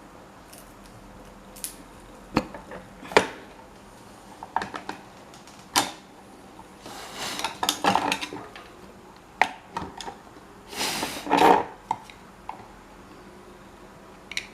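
Metal parts and tools being handled on a workbench: scattered sharp clinks and knocks, with two longer scraping or rubbing sounds, one in the middle and one near the end.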